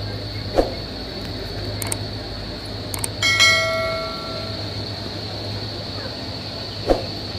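Steady low machine hum of the ropeway, with a bell struck once about three seconds in, ringing out for about a second. Two short sharp clacks, one about half a second in and one near the end.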